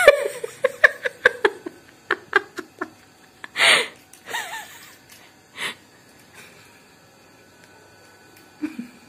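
A man laughing: a run of short, fast laughs that fade over the first few seconds, then a few separate bursts of laughter, then a quiet stretch.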